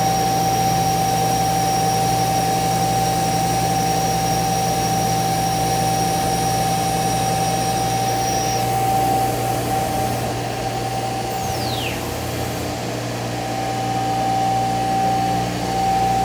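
CNC router and its dust extraction running with a steady whir and a strong steady whine. A high tone stops about nine seconds in, and a falling whine follows a couple of seconds later.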